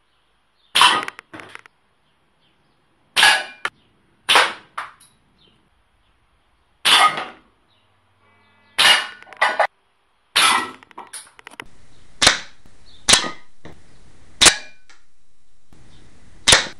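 Homemade compressed-air pistol, charged with a bicycle pump and firing 4.5 mm lead pellets, shot about ten times, one sharp pop every one to two and a half seconds; several shots are followed by a quieter click. From about twelve seconds in, a faint steady hiss lies under the shots.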